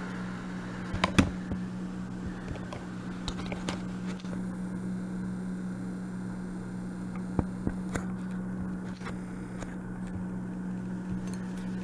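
Steady low hum with a few light clicks, the sharpest about a second in.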